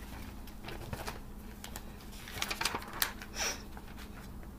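Magazine pages being handled and turned: a scatter of short paper rustles and crackles, busiest a little past halfway.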